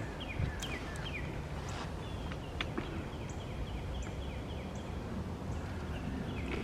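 A bird calling over and over in short, falling chirps against a steady outdoor background, with a few sharp clicks mixed in.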